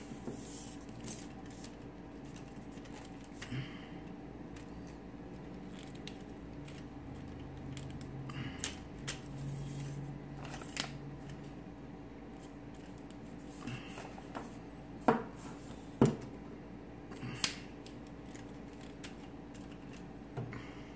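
Camera tripod being handled as its legs are extended: scattered clicks and knocks of the leg sections and locks, with three sharper knocks close together near the end.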